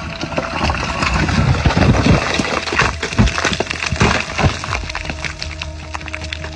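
Many sharp knocks and cracks in quick, irregular succession over a rushing, noisy background.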